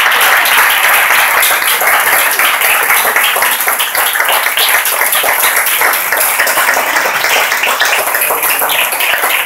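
Audience applauding, dense at first and thinning into more scattered individual claps.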